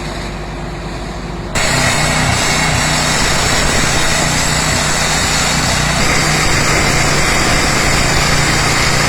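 Engines of road-repair machinery running steadily. The noise jumps suddenly louder about a second and a half in.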